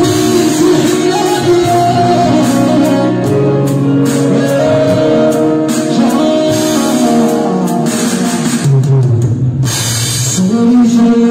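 Loud live rai music over a PA system: an electronic keyboard melody over a drum beat. About nine seconds in the melody drops out briefly under a wash of hiss, then comes back.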